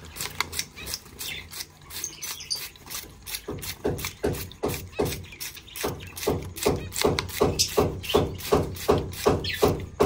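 Hand trigger spray bottle squirting water into a finch cage, pumped in quick repeated squirts; from a few seconds in they come steadily, about three a second.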